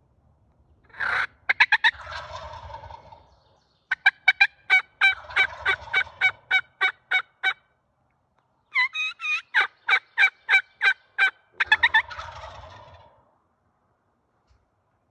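Jakes (young wild turkey gobblers) gobbling at close range: a rattling gobble about a second in and another near the end. Between them come two runs of quick, evenly spaced yelps, about three or four a second.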